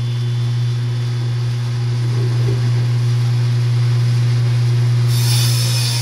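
Table saw running with a loud, steady low hum while a board is ripped through the blade; a brighter, higher hiss joins about five seconds in.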